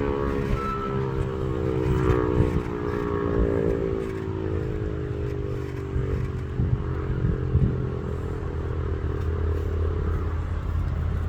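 Outdoor tornado warning siren winding down, its pitch slowly falling as it fades out near the end, over a steady low hum.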